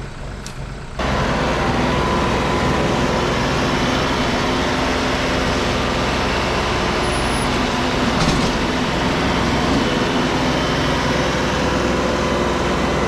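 Kioti compact tractor's diesel engine running steadily, jumping louder about a second in.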